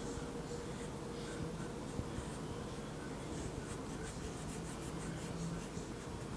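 A thin paintbrush stroking oil paint onto the painting surface: a run of short, soft, scratchy strokes over a faint steady hum.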